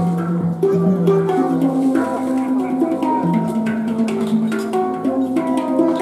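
Music: a melody of held notes changing pitch every second or so, with light percussion hits.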